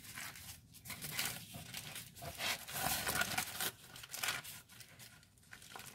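Aluminium foil crinkling and rustling as it is peeled open by hand from around a wrapped roll, in irregular crackles that are loudest about halfway through.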